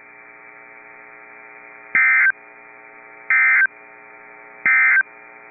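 Three short, identical bursts of EAS SAME digital data tones, about a second and a third apart: the end-of-message code that closes an Emergency Alert System weather radio broadcast. A faint steady hum runs under them.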